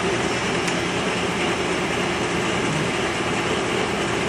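Clausing Colchester 10" x 36" pedestal lathe with its 1 HP motor running under power, a steady whir of motor and gear train.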